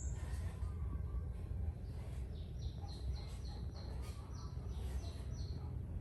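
A bird chirping: a run of short, high, falling chirps, about three a second, in the second half, over a steady low rumble.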